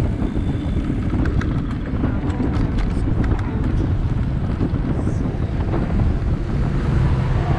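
Wind buffeting the microphone over a steady deep rumble of riding along, with a scatter of light ticks in the first few seconds.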